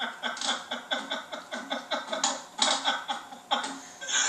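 Several men laughing hard, in a run of short rhythmic laughs, about three or four a second.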